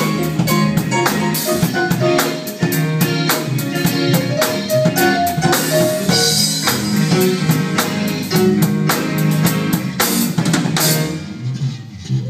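A live band playing: a drum kit with kick, snare and cymbals keeps a busy beat under electric bass, electric guitar and keyboard. The drums stop about a second before the end, leaving the lower notes ringing.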